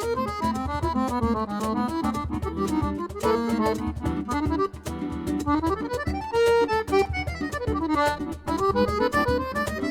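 Accordion playing a fast instrumental melody in quick runs up and down, over a steady low accompaniment.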